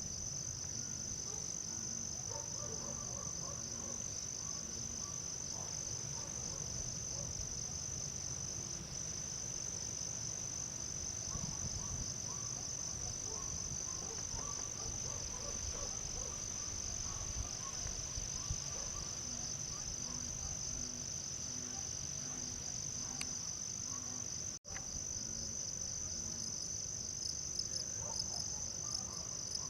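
Insect chorus: a steady, high, unbroken trill.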